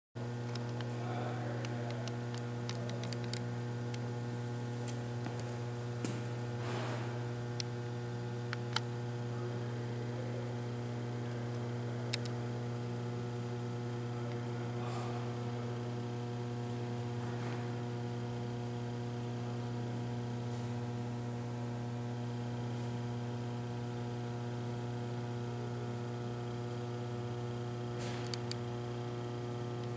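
Steady electrical hum: a low buzz with a ladder of even overtones, unchanging throughout, with a few light clicks and taps scattered through it.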